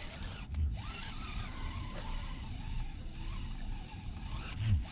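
Wind buffeting the microphone as a steady low rumble, with two stronger thumps, about half a second in and a louder one near the end, over the quiet whir of a baitcasting reel being cranked in.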